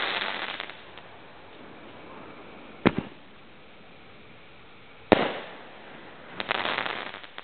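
Brothers Quake 500-gram firework cake firing slowly. A burst already fades in a crackling tail at the start, a sharp bang comes about three seconds in, and a louder break about five seconds in trails off. A quick run of crackling pops follows near the end.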